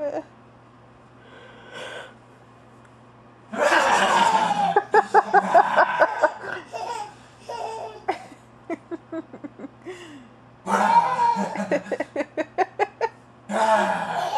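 Hearty laughter in two loud bouts, each breaking into rapid ha-ha pulses; the first starts a few seconds in and the second about seven seconds later.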